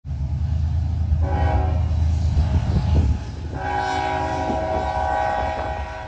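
Locomotive air horn sounding a chord twice, a short blast then a longer held one, over the low rumble of a train that drops away about three seconds in.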